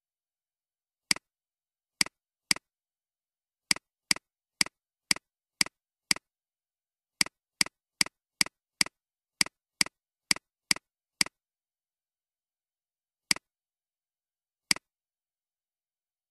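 Computer mouse clicks: about twenty single sharp clicks at uneven spacing, many in quick runs about half a second apart, the last two more spread out.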